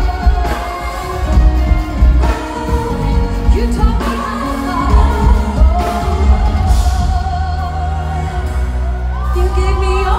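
Live pop song played through a concert PA: a woman singing lead over a band with keyboards and heavy bass.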